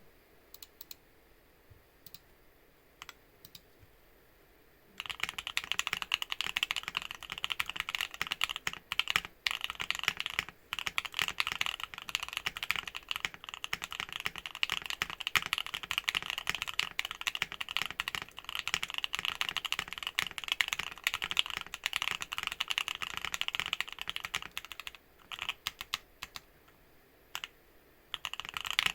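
Typing on a Bakeneko60 mechanical keyboard with lubed Banana Split linear switches. A few scattered keystrokes, then fast continuous typing from about five seconds in, a short lull of sparse keystrokes near the end, then typing again.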